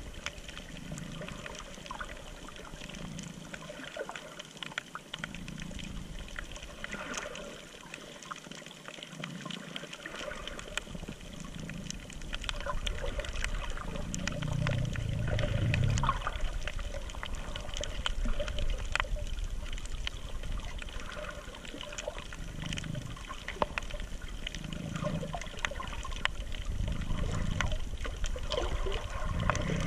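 Muffled underwater sound of water moving around a camera carried by a swimming snorkeler, with a low swell about every two seconds and scattered sharp clicks, a little louder from about twelve seconds in.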